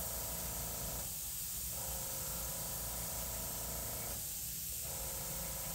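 Gravity-feed airbrush spraying paint close to the paper, making heavy dots: a steady hiss whose fuller middle part drops out briefly twice, about a second in and about four seconds in.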